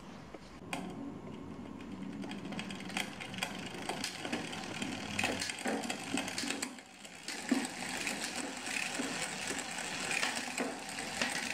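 Hand tools and metal bicycle parts clicking, knocking and rattling irregularly as a component is taken off the bike.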